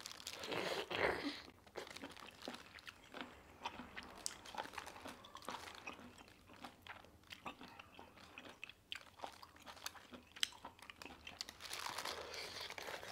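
A person biting into a cooked octopus tentacle and chewing it close to the microphone: a louder bite about a second in, then a long run of small crunching, clicking chews. Another bite comes near the end.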